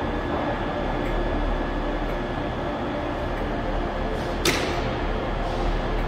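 Diesel multiple units running at a station, a steady low engine hum. One sharp click stands out about four and a half seconds in.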